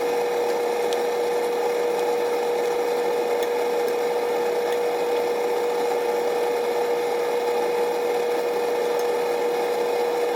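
A small electric motor running steadily, giving a constant whirring hum with one held tone.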